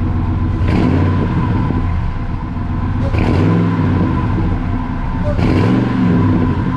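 Ford F-150's V8 engine running, its pitch swelling briefly about every two seconds, with an exhaust leak that the owner can hear.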